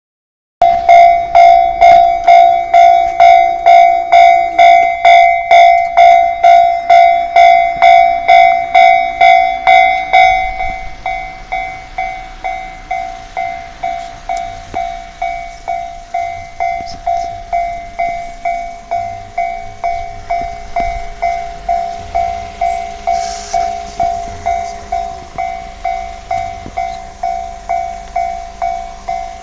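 Japanese level-crossing warning bell ringing at about two strikes a second with a clear, steady ringing tone. It is loud at first and drops to a lower volume about ten seconds in, still ringing at the same pace.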